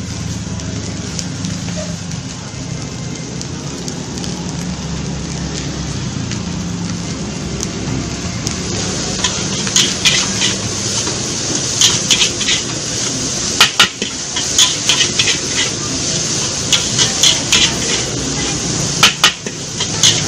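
A metal spatula scraping and clanking against a steel wok as fried rice is tossed and stirred, over a steady frying hiss. The clanks come thick and fast from about halfway through.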